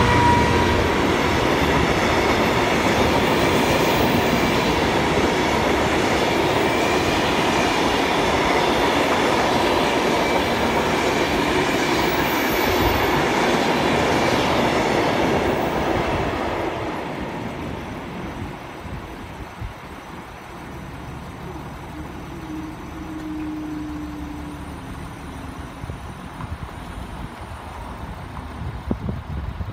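Freight train rolling across a level crossing, its wagons rumbling and clattering in a steady roar. About sixteen seconds in it fades away as the train passes.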